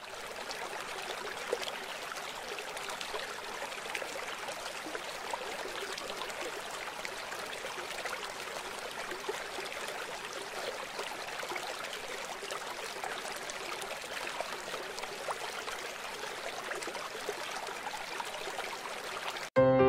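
Flowing river water: a steady trickling, lapping wash with many small splashes, which stops abruptly near the end.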